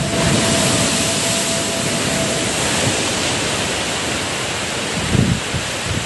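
Storm waves crashing over a seawall, a loud steady rush of breaking surf and spray, with seawater washing across the road. A low thump about five seconds in.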